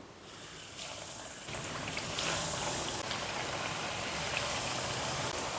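Breadcrumb-coated potato cutlets sizzling as they shallow-fry in hot oil in a kadai, a steady hiss that rises within the first second after they go in.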